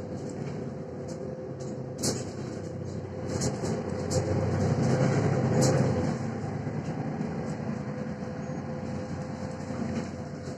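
Mercedes-Benz Citaro C1 Facelift city bus heard from a passenger seat while on the move: steady engine and road rumble with a faint constant whine, swelling louder for a couple of seconds around the middle, and a few sharp rattles from the cabin.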